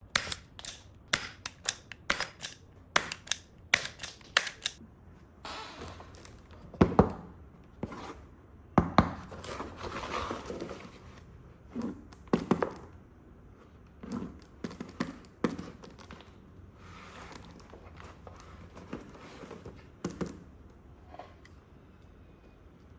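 Close-miked unboxing and handling sounds: a quick run of sharp clicks and knocks in the first few seconds, then packaging rustling, tearing and crinkling, broken by several loud thunks.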